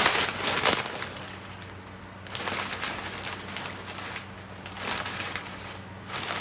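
Dry pancit canton noodles crunching and crackling as they are broken and pressed into the pan, loudest over the first second, with further crackly swells later.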